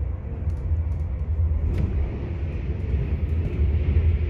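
Steady low rumble of a moving passenger train heard from inside the carriage, with a hiss that grows in the second half and a single faint click near the middle.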